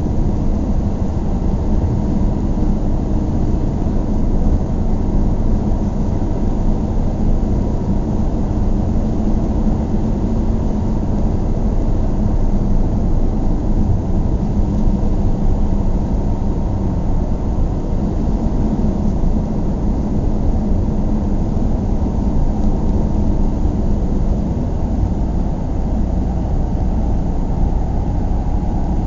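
Steady low vehicle rumble at an even level, with no starts, stops or changes.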